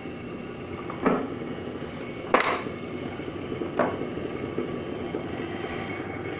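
A 1940s horizontal milling machine, driven by a treadmill motor, running steadily with three metallic clanks from its handles and table being worked by hand, the loudest about two and a half seconds in.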